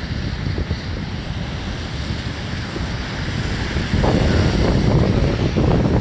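Heavy surf breaking on a sandy beach, with strong wind buffeting the microphone; the sound grows louder about four seconds in.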